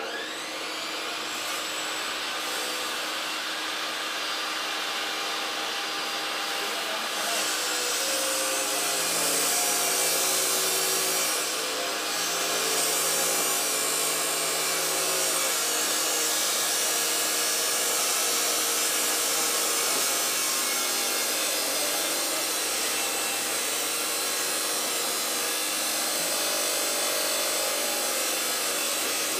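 Handheld power tool running continuously on metal: a steady rasping hiss with a motor whine that shifts in pitch as the load changes. It starts abruptly.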